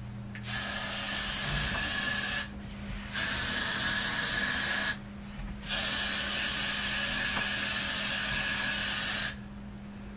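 Aerosol can of göt2b Glued freeze hairspray sprayed in three hissing bursts, about two seconds, two seconds and three and a half seconds long.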